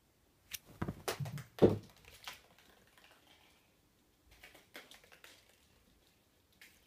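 A cat leaping off a bed and scrambling across a hardwood floor: a quick irregular run of knocks and thumps over about two seconds, one thump louder than the rest, then fainter light paw taps a few seconds later.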